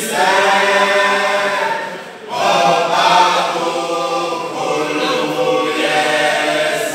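Male isicathamiya choir singing a cappella in close harmony, holding sustained chords, with a short break between phrases about two seconds in.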